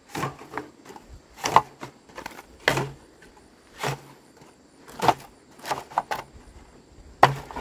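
Repeated hard strikes, about seven of them at roughly one a second, each a sharp knock with a short dull thud under it.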